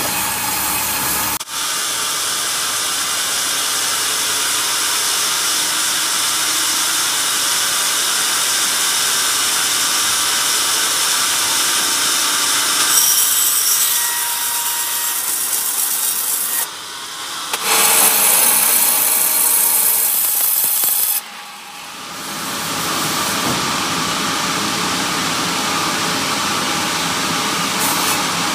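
Band sawmill running and cutting coconut logs: a steady, hissing saw noise that starts about a second and a half in, breaks off and resumes abruptly a few times, and is loudest in the middle stretch.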